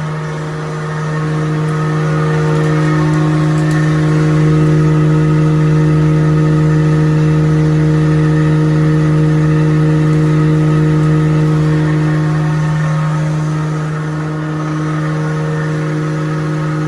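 Wood grinding machine for making sawdust powder, running with a loud, steady hum that dips briefly about half a second in and again a couple of seconds before the end.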